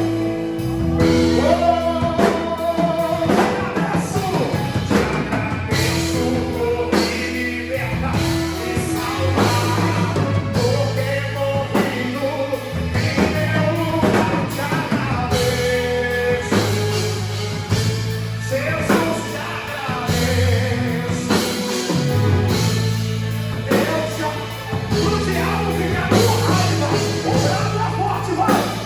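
Live gospel band performance: a singer over drum kit, bass and guitar, with a steady beat.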